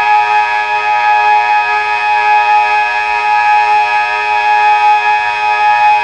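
Delta 6 civil-defence siren sounding a loud, steady, unbroken tone: Austria's 'Warnung' signal, a three-minute continuous tone that warns of approaching danger.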